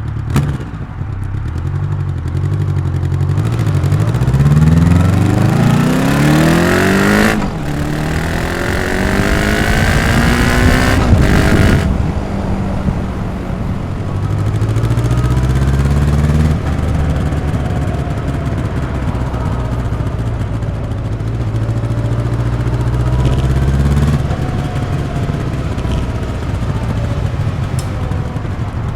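Honda CB 1100 RS's air/oil-cooled 1140 cc inline four-cylinder, heard through its stock exhaust, accelerating hard. The pitch climbs and drops sharply at gear changes about seven and twelve seconds in. It then holds steady cruising revs with further shifts and eases off near the end, over a rush of wind.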